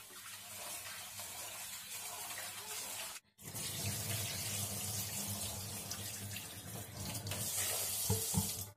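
Kitchen tap running into a stainless-steel sink while rice is rinsed and drained in a rice cooker's inner pot. The water sound drops out briefly about three seconds in.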